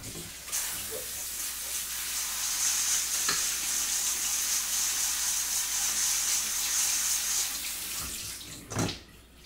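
Kitchen faucet running water over dried black beans in a stainless-steel colander in the sink: a steady hiss that stops about eight seconds in. A short knock follows near the end.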